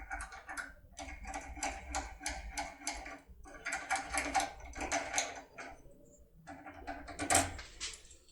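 Runs of quick, light metallic clicks and rattles from a foil impression tool being worked inside a UCEM lock cylinder, with brief pauses and one sharper click a little past seven seconds in.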